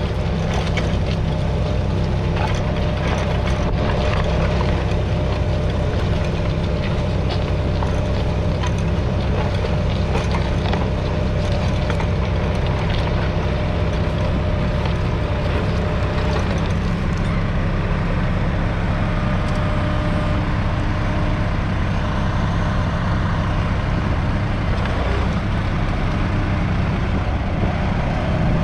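Massey Ferguson 420's 3.3-litre three-cylinder diesel engine running steadily under load, pulling a two-furrow mounted plough through the soil. Scattered clicks and rattles sound over it, mostly in the first half.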